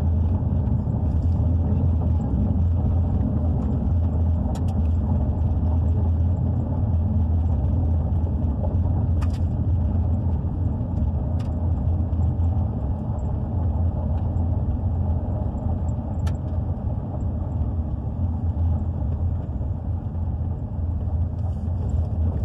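A vehicle driving slowly over a gravel and dirt road, heard from inside the cabin: steady low engine and tyre rumble, with a few sharp clicks.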